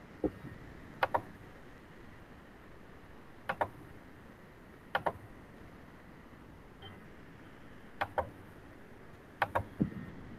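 Five pairs of short, sharp clicks spread over about ten seconds, each pair a quick double click, over a faint steady hiss.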